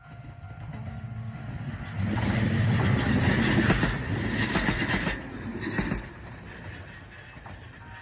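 Electric train passing close by: the noise swells over about two seconds, stays loud for about four, then falls away to a lower rumble.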